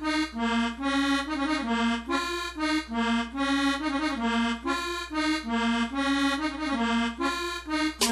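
Recorded dance music: an accordion playing a melody on its own, without drums, with percussion coming in at the very end.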